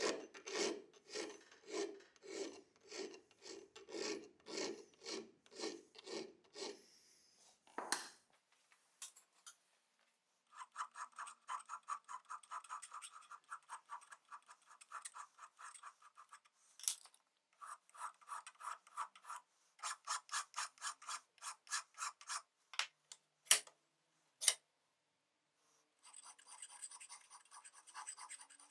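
Repeated back-and-forth hand strokes of an abrasive rubbing on a workpiece. At first the strokes come slowly and deep, about two a second. After a pause they turn faster and higher, about four a second, with two sharp knocks between runs and a hissier scraping near the end.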